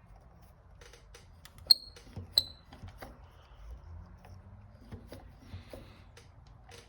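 Light scattered clicks of small metal parts being handled at a motorcycle clutch lever and its cable adjuster, with two short ringing metallic pings a little under a second apart near two seconds in.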